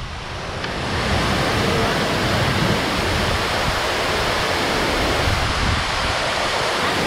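Artificial rock waterfall pouring into a lagoon: a steady rush of falling water that swells about a second in.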